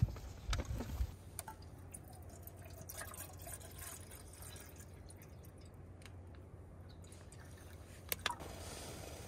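Faint dripping and trickling of water, with a few light clicks and knocks in the first second and a short pair of clicks about eight seconds in.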